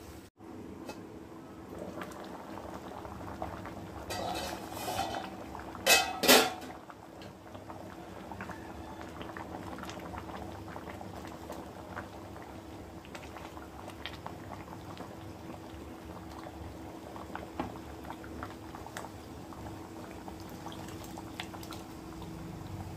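Thick mutton dalcha bubbling at a boil in a pot on the stove, a steady crackle of bursting bubbles over a faint low hum. About six seconds in, two sharp clanks stand out as the loudest sounds.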